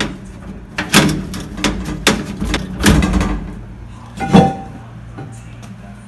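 The plastic louvered grille panel of a small evaporative (swamp) cooler being handled, with four sharp knocks and clatters, the loudest about four seconds in.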